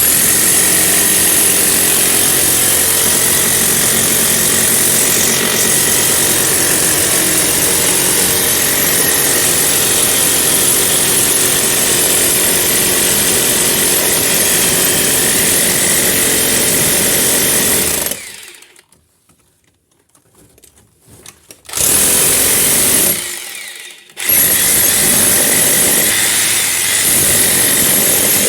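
Hammer drill running at full power while breaking into a wall. It cuts out for a few seconds just past halfway, runs again, stops for about a second, then runs on.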